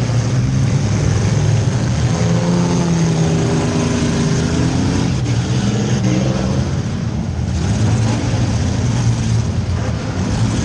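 Compact demolition derby car engine running, heard from inside the car's cabin, its pitch rising and falling for a few seconds in the middle.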